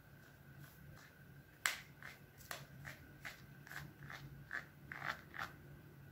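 Soft crackling clicks, about two a second, as a wad of cat hair is pulled off the rubber nubs of a pet-grooming glove. The first, a sharper snap about a second and a half in, is the loudest.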